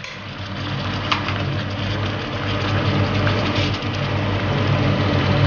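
A wooden spoon stirring and scraping chunks of beef through thick tomato sauce in a metal pot, with a few light knocks. A steady low hum runs underneath.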